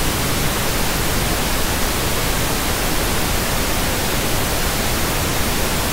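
Loud, steady static hiss: an even rush of noise across all pitches that does not change.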